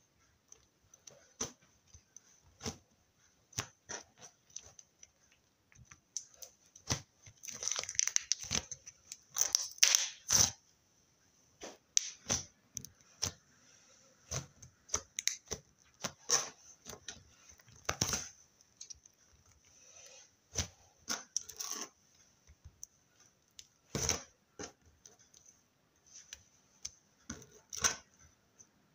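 Slime being handled and squished: irregular crackling pops and clicks, with a denser, louder run of crackles about eight to ten seconds in.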